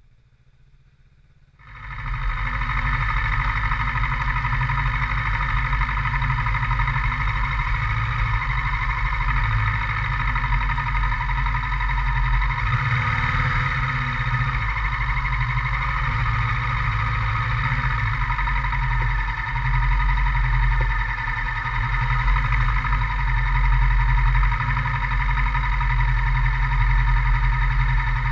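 Kawasaki Versys 650 parallel-twin engine running at a steady speed. It comes in suddenly about two seconds in, and its pitch hardly changes after that.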